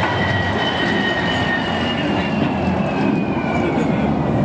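Salt-mine tourist train passing close by: the mine locomotive and its bench cars rumble on the narrow rails. A thin wheel squeal in two high tones slowly falls in pitch.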